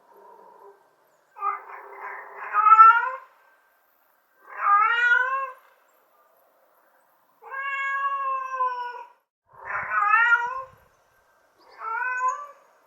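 Domestic cat meowing five times, each meow about one to two seconds long with short gaps between. The first is the longest and loudest, and the middle one is held at a nearly level pitch.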